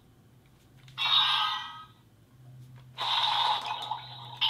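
DX Orbcalibur toy sword playing electronic sound effects through its small built-in speaker: a short burst about a second in and a longer one from three seconds in, with a few faint clicks from its turning wheel before the first.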